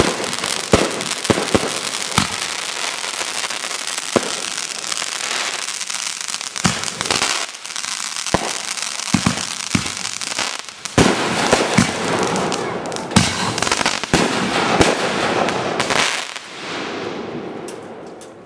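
Fireworks going off in quick succession: many sharp bangs over a dense, continuous crackle, fading away over the last couple of seconds.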